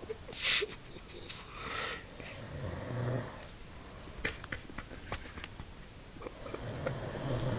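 Snoring: two slow snores about four seconds apart, each lasting about a second, with a brief loud burst of noise near the start.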